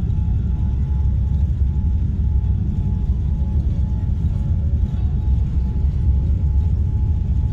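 Cabin noise inside a Gulf Air Airbus airliner rolling along the ground: a loud, steady low rumble of the jet engines and airframe, with a faint steady whine on top.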